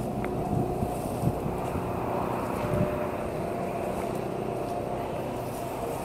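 Steady outdoor background rumble with wind on the microphone, and a few soft rustles of steps through tall grass in the first three seconds.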